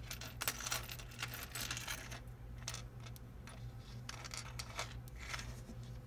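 Small metal jewelry pieces clinking and rattling against each other as they are handled and sorted, busiest in the first couple of seconds and sparser after. A steady low hum runs underneath.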